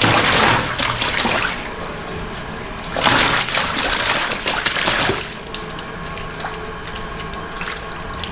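Water gushing in two bursts, one at the start and a longer one about three seconds in, followed by a few light clicks and knocks.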